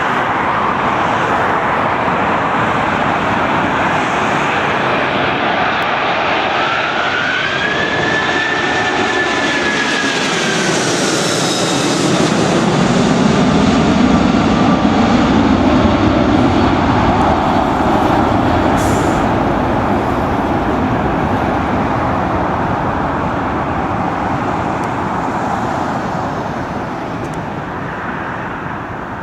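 Boeing 747-400's four jet engines passing low and close at go-around power during a missed approach. A whine rises then falls about 7 to 11 seconds in, followed by a low rumble that swells near the middle and slowly fades as the aircraft climbs away.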